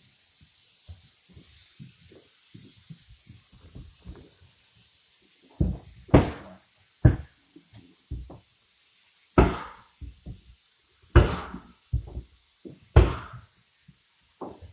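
A run of loud, sharp knocks, about one a second at uneven intervals, after several seconds of faint clicks.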